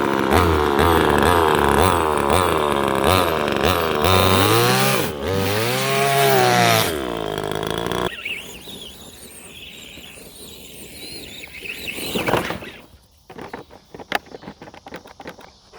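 25cc two-stroke gasoline chainsaw engine revving up and down, with one long rise and fall in pitch, then cutting out about eight seconds in. After that come quieter handling noises and a few sharp clicks.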